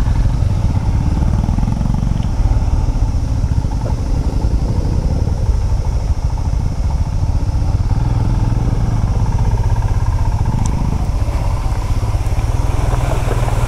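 Royal Enfield Himalayan's 411 cc single-cylinder engine running steadily as the motorcycle is ridden along a rough trail.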